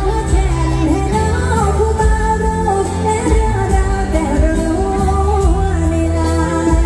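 A woman singing a Thai mor lam song with a live band. Her voice glides and wavers in pitch over a steady, heavy bass beat and a drum kit's regular cymbal ticks.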